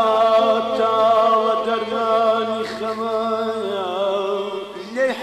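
Male singer in a Kurdish song holding one long, wavering melismatic note over a steady drone accompaniment. Near the end a new sung phrase begins.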